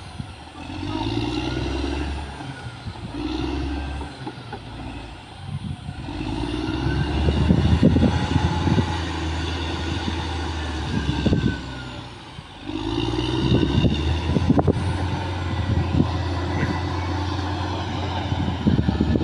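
Caterpillar D6R XL bulldozer's diesel engine working, easing off twice and then pulling hard again, with irregular knocks and rattles from the machine as it works the ground.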